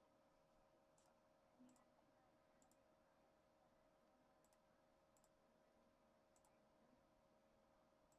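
Near silence: faint room tone with a steady low hum and faint, high double ticks at irregular intervals about a second or two apart.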